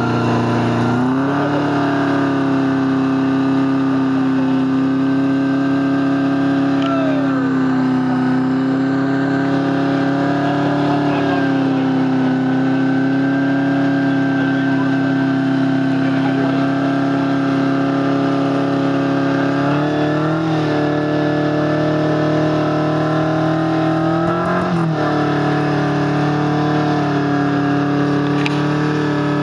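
Rock crawler buggy's engine running at a steady pitch under load as the buggy climbs a steep rock slope, with the revs rising briefly twice in the last third.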